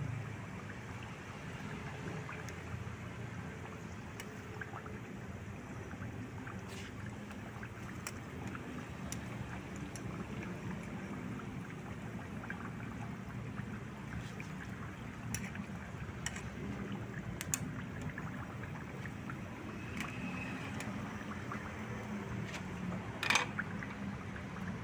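A pan of chicken bubbling hard over a wood fire: a steady bubbling hiss, with scattered sharp clicks and pops and one louder click near the end.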